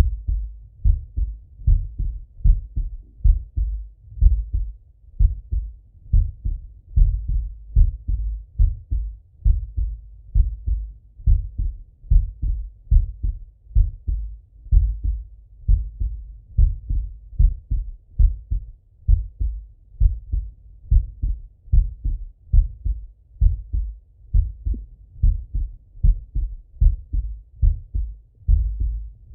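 A man's heartbeat heard through a stethoscope: steady, low paired lub-dub thuds repeating at an even, unhurried rhythm.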